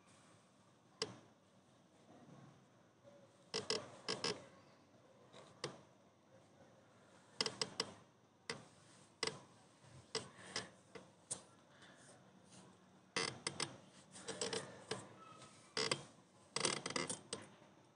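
Irregular light clicks and taps, some in quick clusters, from hands handling a small spray can and pressing a glued plexiglass sheet onto a PVC foam (Forex) panel.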